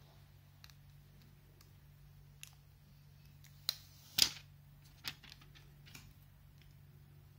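Thin plastic protective film crackling and clicking as it is peeled off a VUZE+ camera's top panel, in a few scattered ticks with two sharp crackles a little past the middle and another about a second later.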